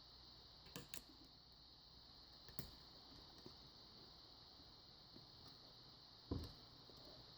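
Faint clicks of a pick and tension wrench working the pins of a Kryptonite tubular lock: a few scattered clicks over near silence, the loudest about six seconds in.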